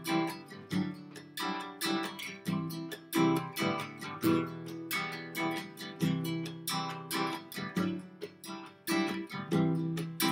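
Acoustic guitar strummed in a steady rhythm through a repeating chord pattern, an instrumental passage with no singing.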